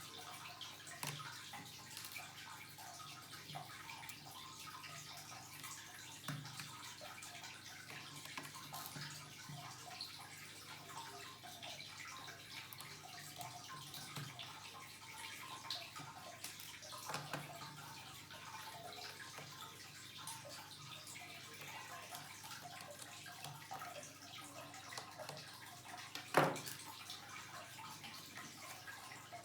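Faint steady hiss with scattered small clicks and taps of hands handling a laptop and its parts, and one sharper knock near the end.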